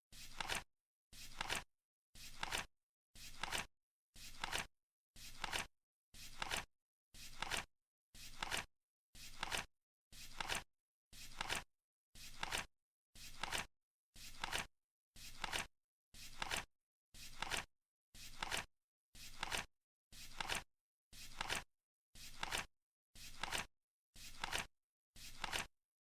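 Flip clock's cards flipping over once a second: each flip is a short papery rustle that ends in a sharp snap, with silence between flips.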